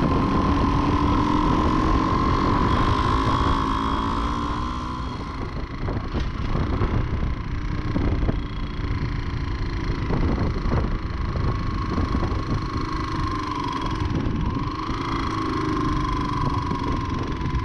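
Single-cylinder 250 cc dual-sport motorcycle engine running at a steady cruise on a gravel road, heard from the rider's own bike with wind rumble on the microphone and scattered knocks from the gravel. The engine note dips briefly and picks back up about three-quarters of the way through.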